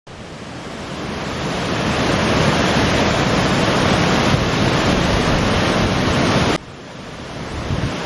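White water pouring over a small weir or cascade: a steady rushing noise that swells over the first couple of seconds, drops suddenly near the end, then builds again.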